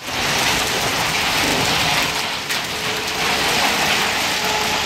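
Hailstorm: heavy rain mixed with small hail pouring down in a dense, steady hiss.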